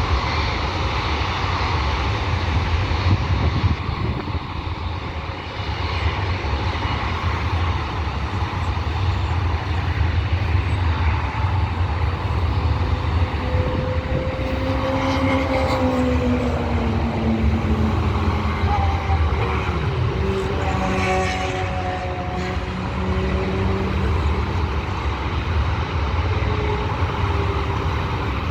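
Steady rumble of jet aircraft engines at an airport. Around the middle, engine whines glide downward in pitch, as of an aircraft moving past.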